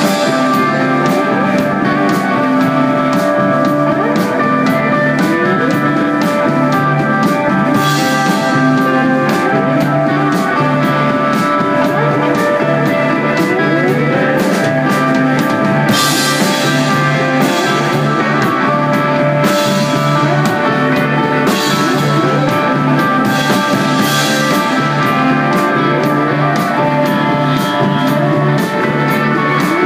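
Desert rock band playing live: electric guitar, bass and drums, with steady cymbal strokes and several cymbal crashes.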